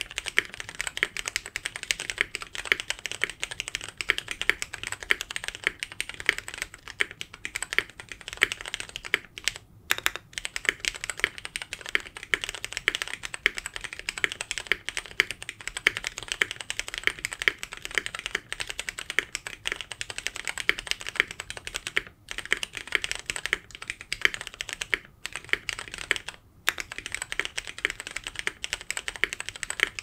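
Continuous typing on a Nuxros RE65 prototype mechanical keyboard with Cherry MX Hyperglide Brown tactile switches on an FR4 plate, DCS-profile keycaps and foam in the case: a dense stream of key clicks, with a few brief pauses.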